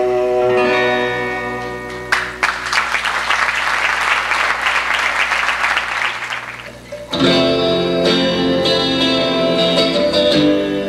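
Live acoustic band ends a song on held notes, then the audience applauds for about five seconds. The applause fades and acoustic guitars start the next song about seven seconds in.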